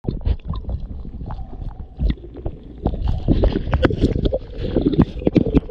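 Water sloshing and gurgling around a GoPro at the water's surface, with many irregular knocks and scrapes on the camera as a dog grabs it in its mouth. The knocks come thicker from about halfway through.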